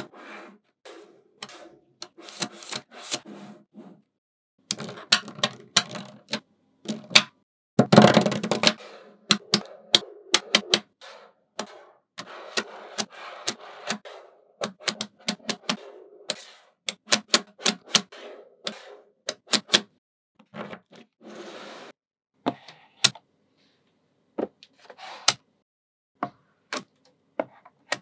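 Small magnet balls clicking as they snap onto one another, in irregular runs of sharp clicks. Denser rattling comes when several balls are shuffled at once, the loudest burst about eight seconds in.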